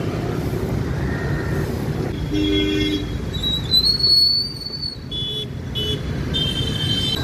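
Busy road traffic crossing a railway level crossing: engines running and several vehicle horns honking in short toots, with a high, shrill whistle held for about a second near the middle.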